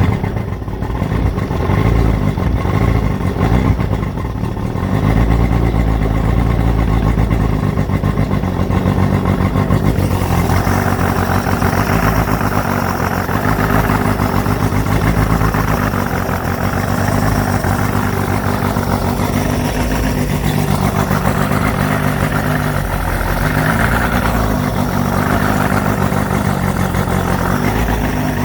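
Boat engine running steadily after being restarted, with a rough, uneven beat in its low note; from about ten seconds in a louder hiss joins it.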